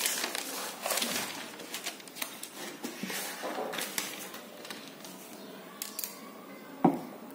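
Paper rustling and handling noise from sheets being moved, with irregular small clicks, busiest in the first few seconds. A single sharp knock near the end is the loudest sound.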